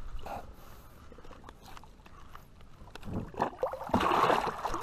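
A blue catfish released over a boat's side, kicking off and splashing water as it swims away, loudest about four seconds in. Before that, only a few light knocks.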